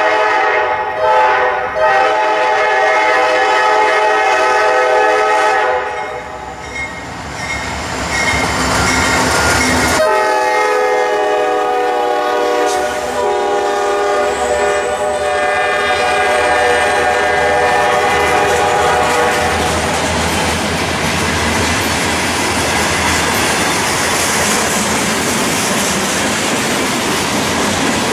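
Norfolk Southern freight train led by a GE D9-44CW locomotive sounding its horn, with a few short soundings at first, then a long blast, a pause, and a second long blast whose pitch drops as the locomotive passes. Afterwards the freight cars roll past with steady wheel noise and clickety-clack over the rail joints.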